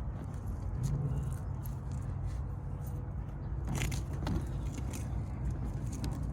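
Light metallic clicks and rattles of small hardware and hand tools being handled, with two sharper clicks about four seconds in, over a low steady rumble.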